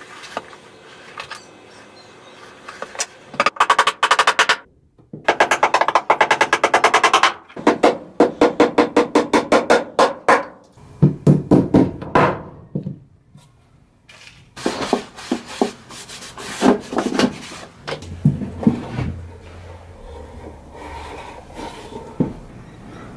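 A small hammer tapping nails into a plywood panel in a wooden frame, in quick runs of strikes about four a second with short pauses between runs.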